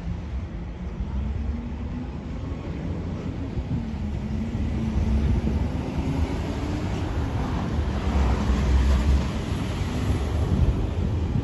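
Diesel locomotive engine running with a low, steady drone, growing louder and loudest about eight to ten seconds in.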